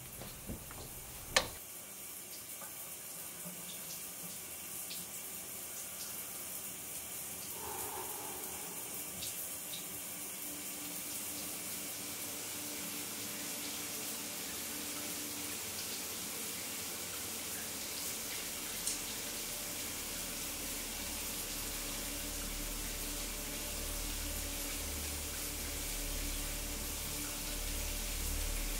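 Water running steadily from a bathtub tap, a hiss that slowly grows louder. There is one sharp click about a second and a half in, and a low rumble builds up past the middle.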